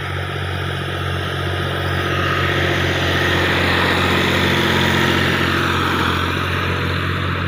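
New Holland (Fiat) 480 tractor's diesel engine running steadily as it pulls an implement through the tilled field. It grows louder as the tractor passes close by, loudest about halfway through.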